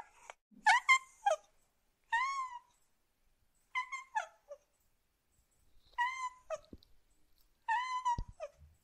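Domestic cat meowing repeatedly: about five short, high meows spaced a second or two apart.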